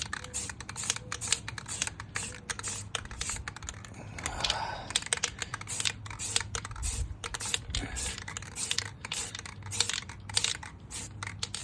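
Aerosol spray-paint can in use: a rapid run of short, sharp clicks and hisses, several a second, over a steady low hum.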